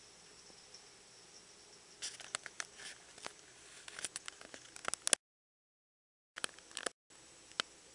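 Faint steady hiss of a heavy rain shower, with a run of irregular sharp clicks and taps from about two seconds in. The sound cuts out completely for about a second midway, and the clicks return briefly after it.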